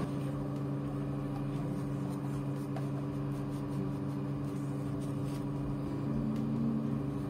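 Steady low machine hum made of several held tones, like a running motor or fan.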